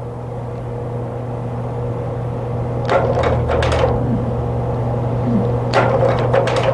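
A steady low electrical hum, with two short clusters of sharp clicks and knocks about three seconds and six seconds in.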